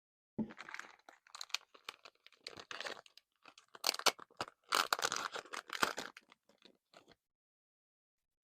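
Blind-pack masking tape packaging crinkling and crackling as it is opened by hand, in a run of irregular bursts that stop about seven seconds in.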